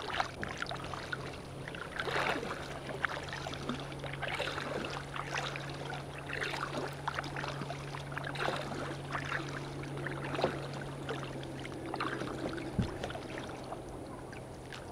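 Kayak paddle strokes splashing and water lapping at the hull, roughly one stroke a second. A steady low hum runs underneath and fades out near the end.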